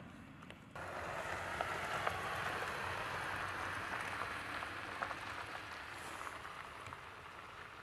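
Jeep Gladiator tyres rolling over a gravel dirt road: a steady crunching hiss scattered with small clicks of stones. It starts suddenly about a second in and eases off a little toward the end.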